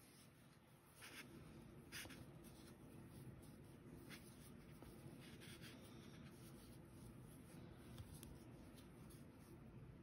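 Faint, scratchy rustling of yarn being wrapped and pulled around a pipe-cleaner doll's leg by hand, with a few soft brushes spread through otherwise near silence.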